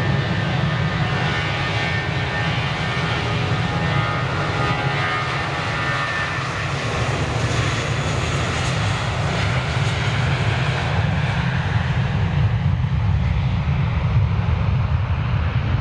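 Jet airliner's engines at takeoff power, close to the runway: a steady loud engine noise, heaviest in the low end, with a high whine over it that fades away after about six seconds.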